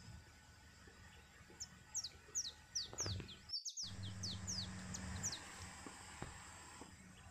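A wild bird calling: a quick series of short, high chirps, each sliding downward, about three a second. The series begins about a second and a half in and lasts a few seconds, with a brief dropout in the middle.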